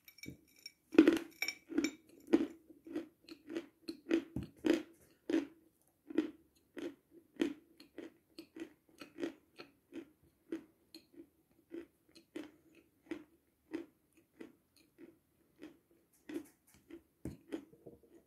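A person biting and chewing a lump of dry Selyanochka powdered milk, with a dry crunch. There is a loud bite about a second in, then steady crunchy chewing at roughly one to two crunches a second.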